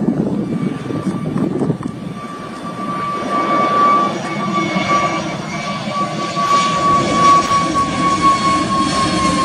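Jet engines of an Airbus A320-family airliner climbing out after takeoff: a loud rumble with a steady high fan whine that slowly drops in pitch as the jet passes overhead.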